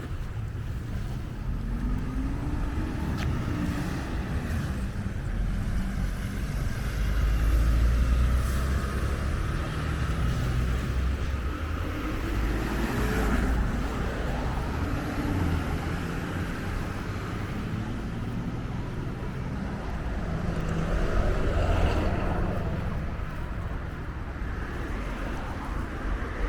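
Road traffic: cars passing one after another, their engine and tyre noise swelling and fading several times over a steady low rumble.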